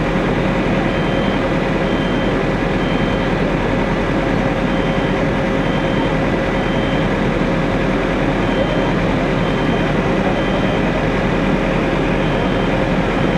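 Fire engines' diesel engines running steadily, a loud, even rumble with a steady hum, and a faint high beep repeating in short runs of a few beeps.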